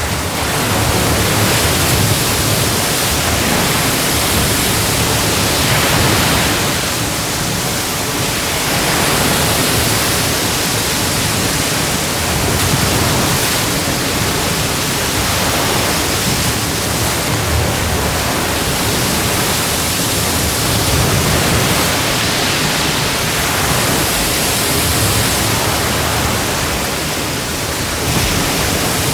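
Atlantic Ocean surf breaking on the shore: a continuous rush of crashing waves that swells and eases every few seconds.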